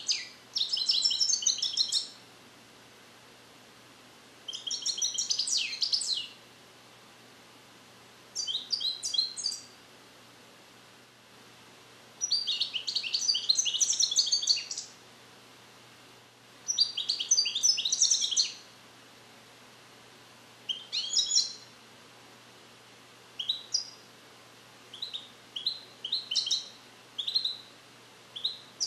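A song-trained, captive-bred European goldfinch singing in bursts of rapid, high twittering notes, each lasting one to three seconds, with pauses of about two seconds between them. Near the end come scattered short single notes. The young bird is starting to repeat the Neapolitan song phrases (passate napoletane) it was taught, but the song is not yet complete.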